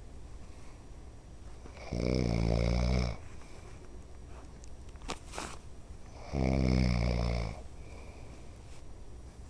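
A man snoring in his sleep: two low, buzzing snores about a second long each, roughly four and a half seconds apart, with quieter breathing between them. A short click sounds about halfway through.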